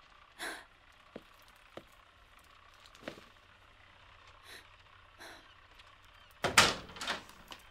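A few soft knocks and rustles, then a louder knocking rustle lasting under a second, about six and a half seconds in.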